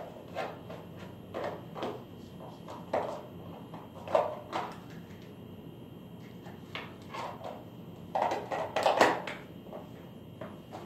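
Irregular short knocks and bumps in a small room, roughly one or two a second, with a quick run of louder ones near the end.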